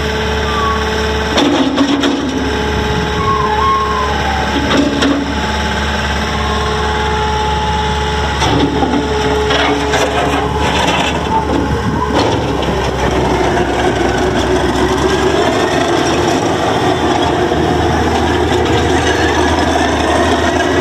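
Diesel engine of a 2010 Gehl CTL85 compact track loader running, with several sharp knocks in the first half. From about twelve seconds in, the engine sound grows busier and slightly louder as it works.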